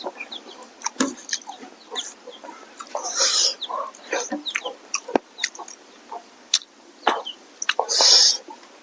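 Close-miked eating sounds: chewing and lip-smacking, with many short wet clicks and two longer noisy bursts about three and eight seconds in.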